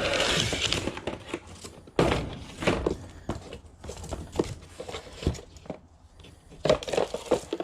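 Rummaging through a box of belongings: paper rustling, then objects knocking and thudding as they are moved and set down, with a sharp knock about two seconds in.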